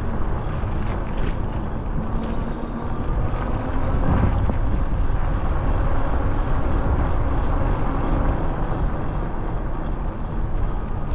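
A car driving, with a steady mix of engine and road noise.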